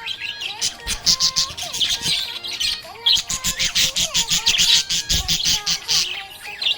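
Budgerigar chirping and chattering in a fast, continuous run of short high chirps, with brief lulls about halfway through and near the end.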